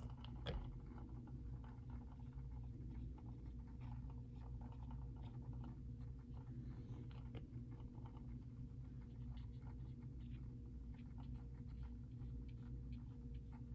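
Faint scattered ticks and small handling sounds of a paintbrush working resin onto a small plastic part, over a steady low hum.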